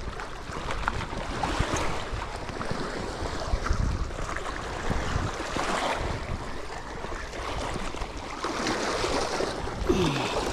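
Wind gusting on the microphone, with water washing against the shore.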